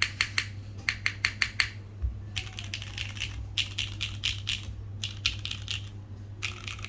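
Typing on a SingaKBD Kohaku custom mechanical keyboard with lubed and filmed Cherry MX Black linear switches in an aluminium plate, under GMK Sparta keycaps. Keystrokes come in several quick bursts with brief pauses between them.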